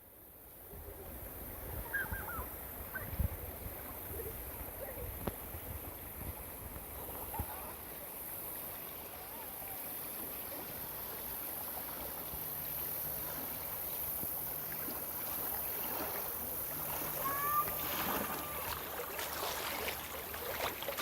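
River water gently lapping and trickling around floating tubes, with gusty wind rumbling on the microphone in the first few seconds and faint distant voices now and then.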